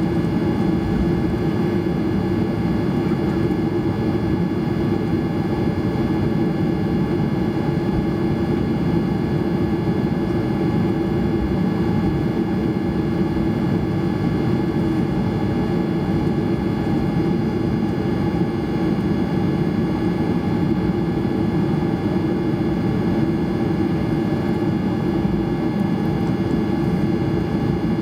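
Cabin noise of a Boeing 737-800's jet engines running at low, steady thrust while the airliner taxis: a steady rumble with a fixed whine on top, not yet spooling up for the takeoff roll.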